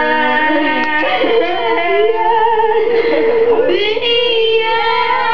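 High voices singing long held notes, some of them with vibrato.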